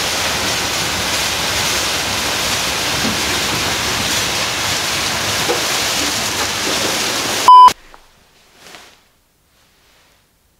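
Automatic car wash running: a steady hiss of water spray and spinning brushes. About seven and a half seconds in, a short, very loud beep cuts it off, and quiet room tone follows.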